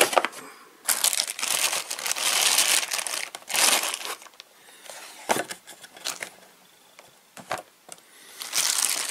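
Packaging crinkling and rustling in bursts as the unboxed items are handled, with two short sharp knocks about five and seven and a half seconds in.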